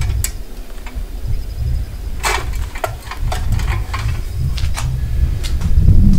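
Fatwood sticks clicking and clattering against the metal rocket stove as they are loaded in: scattered sharp clicks, with a cluster of clatter about two seconds in and a few more near the end, over a low, uneven rumble that sounds like wind on the microphone.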